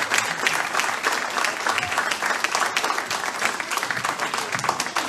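A church congregation applauding, a dense, steady patter of many hands clapping.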